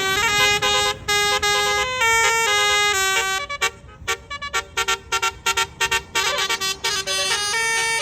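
Tour bus 'basuri' telolet musical air horn playing a tune: held notes at first, then a run of quick short notes from about halfway.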